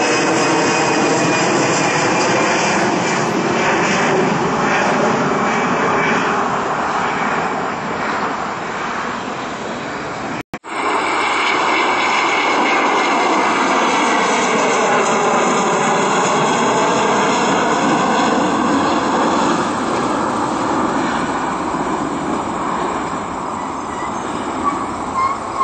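Jet engines at takeoff power on a climbing-out Frontier Airbus A320 (CFM56 engines), a steady loud jet roar passing overhead. After a sudden cut about ten seconds in, a Delta McDonnell Douglas MD-80-series jetliner with tail-mounted engines climbs away, its jet noise sweeping in pitch as it passes.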